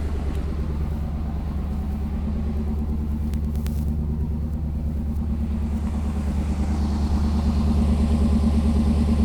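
1987 Chevy R10 pickup's engine idling steadily, running on its freshly repaired fuel system, getting a little louder about two-thirds of the way through.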